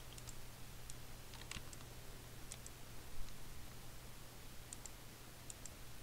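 Computer mouse buttons clicking: short sharp clicks, often a quick press-and-release pair, about half a dozen times at irregular intervals. A low steady hum sits underneath.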